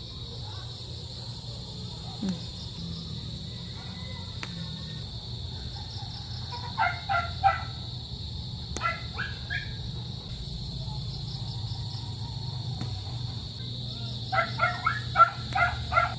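Steady high chirring of crickets with a dog barking in short quick runs: a few barks about seven seconds in, a few more around nine seconds, and a longer run of barks near the end.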